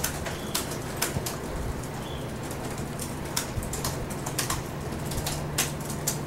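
Reporters typing on laptop keyboards: scattered sharp key clicks, irregular and a few a second, over a steady low electrical hum.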